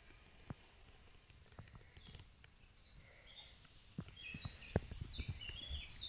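Woodland songbirds chirping and twittering, starting about two seconds in and growing busier, over scattered light crackles of dry leaves and twigs on the forest floor.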